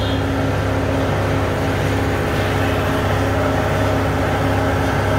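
A machine running steadily: an even, low drone with a pulsing hum over it.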